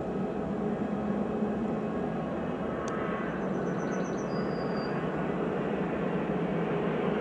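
Boeing 767-300 twin-engine jet airliner's engine noise, a steady low sound that grows slowly louder as it rolls along the runway just after touching down. A brief high trill ending in a held note sounds faintly about three seconds in.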